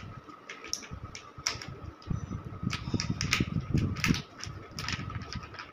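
Foil seed packet crinkling and crackling in irregular bursts as it is handled and opened, with low thumps from the hands.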